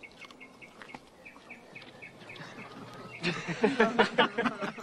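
A small bird chirping over and over, about four short chirps a second. A little past halfway, loud laughter breaks out and becomes the loudest sound.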